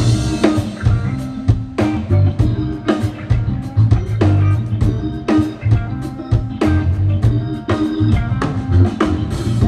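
Live band playing the instrumental intro of a blues-rock song: electric guitar, bass and drum kit coming in together on the downbeat and keeping a steady beat.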